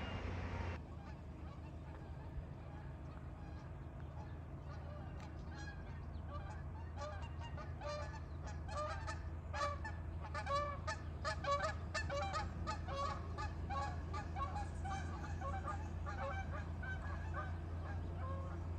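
Many short, pitched bird calls coming thick and fast, starting a few seconds in, over a steady low hum.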